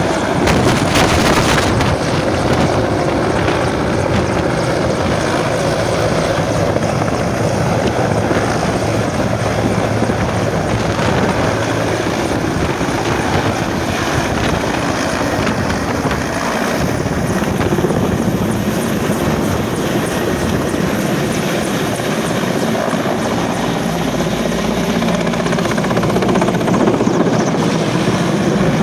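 Mi-17-type military transport helicopter's rotors and turbines, loud and steady as it flies low and banks close overhead.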